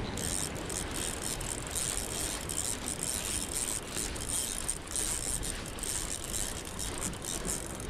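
Spinning reel being cranked to bring in a line under load, a steady fast ratcheting of its gears and clicker. The angler says his drag just wouldn't tighten.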